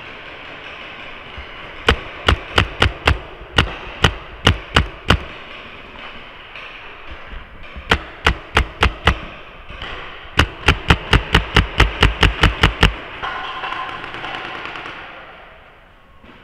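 Paintball marker firing close by in quick strings of shots, the longest a run of about a dozen at roughly five shots a second, over the hiss of an indoor game.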